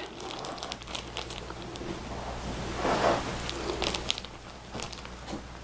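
Clear plastic packaging crinkling and rustling as it is handled, with small scattered clicks and a louder rustle about three seconds in, over a faint steady low hum.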